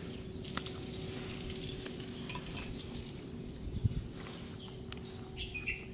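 Fingers scooping lithium grease from a plastic cup and packing it into a CV joint boot on a drive-shaft axle: faint soft squishing and handling, with a light knock about four seconds in and a faint steady hum underneath.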